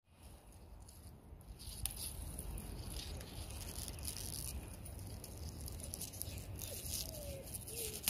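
Rustling and crackling of dry leaves and plant stems, with many small irregular clicks, building up about a second and a half in.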